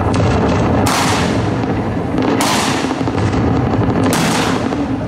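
Muzzle-loading field cannons firing blank charges one after another: three sharp shots about a second and a half apart, each dying away, over a steady low background sound.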